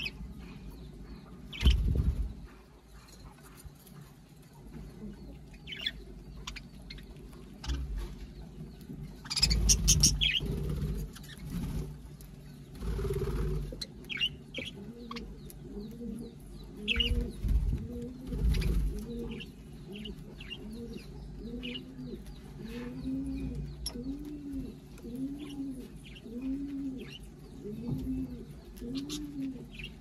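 A flock of small parrots (budgies and lovebirds) chirping now and then, with a few louder rustles of wings. Through the second half a dove coos over and over, a low rising-and-falling note about once a second.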